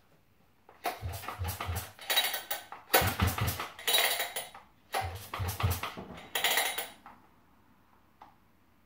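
Recoil starter of a Husqvarna 395XP two-stroke chainsaw pulled three times, the cord turning the engine over against compression in a rapid pulsing without it firing.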